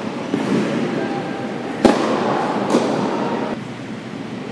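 Tennis ball being hit and bouncing during a rally on an indoor hard court: three sharp pops that echo around the hall, the loudest about two seconds in.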